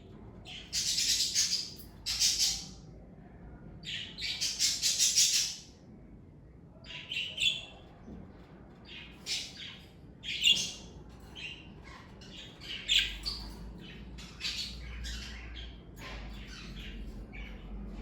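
Pet budgerigars chirping and squawking: three loud bursts of harsh chatter in the first six seconds, then scattered shorter chirps.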